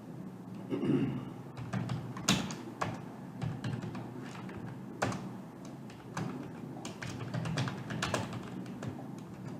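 Typing on a computer keyboard: irregular keystrokes, with a few louder clicks about two and five seconds in.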